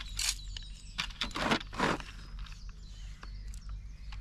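Hemp seed being scooped into a bait dropper: three short rustling, rattling strokes in the first two seconds.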